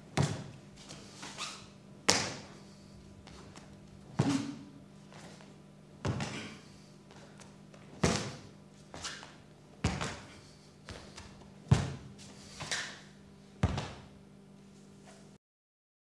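Sharp thuds about every two seconds, with lighter knocks between, from a martial artist's footwork and long wooden staff as he performs a Xingyi staff routine on a studio floor. A steady low hum runs beneath, and all sound cuts off near the end.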